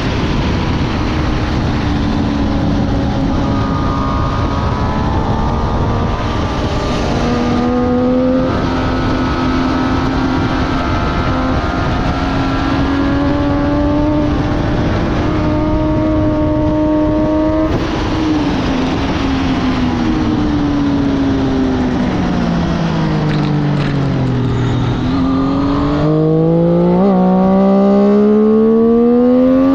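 Motorcycle engine at speed on a race track, heard onboard under heavy wind rush. The note holds and slowly rises for much of the run, falls for several seconds as the bike slows, then climbs sharply again near the end as it accelerates.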